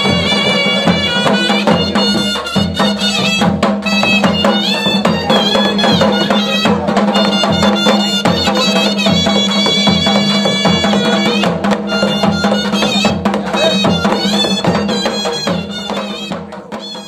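Himachali Pahari folk dance music: a reedy wind instrument plays an ornamented melody over a steady drone, with drums keeping a regular beat. It fades out near the end.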